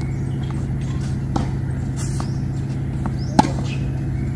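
Tennis balls struck by racquets in a rally: a fainter hit about a second and a half in, a light tap shortly after, and a sharp, louder hit about three and a half seconds in. A steady low hum runs underneath.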